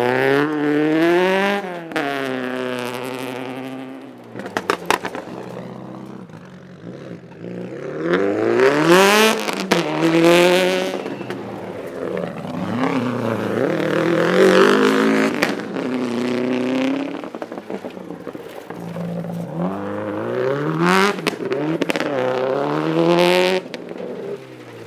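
Rally car engines revving hard on a gravel stage, the pitch climbing and dropping again and again through gear changes in several loud surges, with a few sharp crackles in between.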